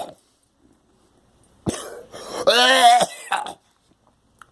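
A person coughing: a short cough about one and a half seconds in, then a longer, louder cough with a clear voiced pitch that dies away soon after.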